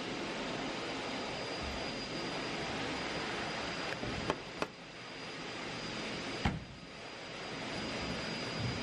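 Steady rushing machine noise, like air from a blower, with a faint high whistle over it. Three sharp clicks come about halfway through, two close together and one about two seconds later. After the clicks the rush drops off and slowly swells back.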